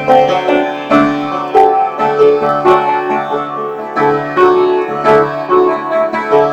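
Instrumental background music with plucked or struck notes in a steady rhythm, piano-like keyboard carrying the melody.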